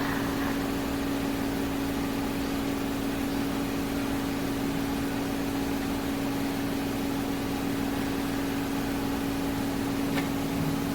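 A steady machine hum: one constant low-pitched tone over a faint even hiss, with no change in level.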